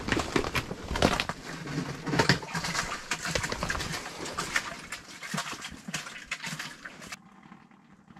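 Handling noise on an underwater fishing camera: dense, irregular knocking, scraping and rubbing as a hand works at it by the lens. It cuts off suddenly about seven seconds in, leaving quiet background.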